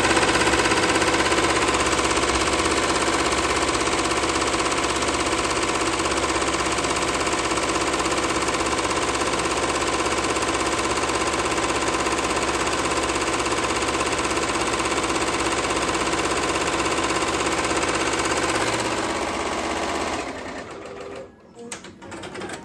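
Fifteen-needle commercial embroidery machine stitching a logo into a knitted beanie, running at a fast, steady rate. About twenty seconds in, the stitching winds down and stops as the machine halts for a thread colour change.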